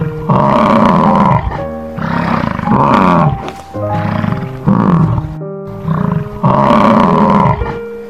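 American bison bellowing: a run of about five loud, rough bellows, each about a second long, over background piano music.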